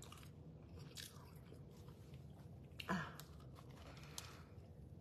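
Faint chewing and biting into a soft pita sandwich filled with scrambled eggs and avocado, with one short, louder mouth sound about three seconds in.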